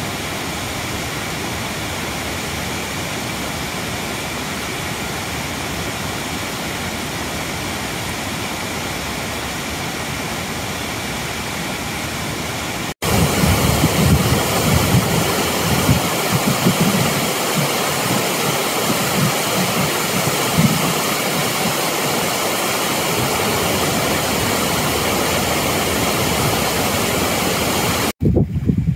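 Steady rush of falling or fast-flowing water, like a waterfall. About halfway through it cuts abruptly to a louder stretch with uneven low rumbling mixed in.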